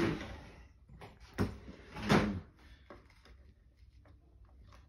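Knocks, clicks and a scrape as a Razor Power Core E95 electric scooter is handled and repositioned, the loudest about two seconds in, then only faint handling noise.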